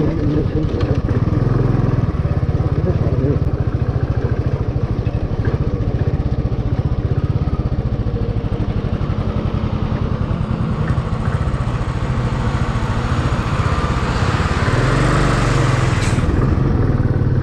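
Motorcycle engine running steadily while riding, with road and wind noise. Near the end the noise of a large truck passing close by rises, with a brief hiss.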